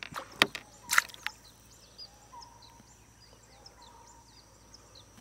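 A few sharp splashes of water in the first second or so as the hooked marble goby is handled at the surface, then small birds keep up short, falling chirps over a quiet background.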